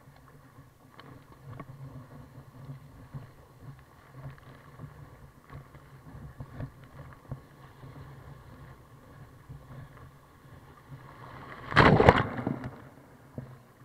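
Water rushing around a surf kayak riding a wave, with scattered small splashes. About twelve seconds in comes one loud, brief rush of white water.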